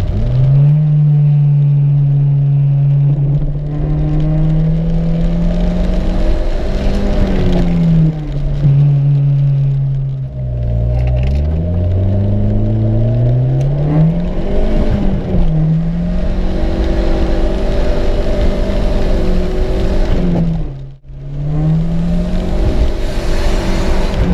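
Turbocharged 1.6-litre four-cylinder engine of a Toyota Corolla AE92, heard from inside the cabin, pulling through the gears. Its pitch climbs and falls back several times with the shifts. The sound drops out for a moment shortly before the end.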